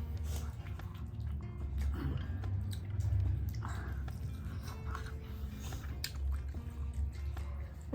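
Close-miked chewing and biting of food, with irregular crunches and clicks, over a steady low hum.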